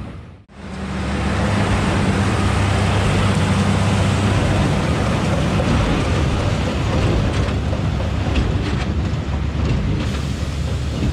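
John Deere tractor engine running steadily under load while pulling a Krone Big Pack large square baler, with the baler's machinery noise mixed in. The sound drops out briefly just after the start, then carries on evenly.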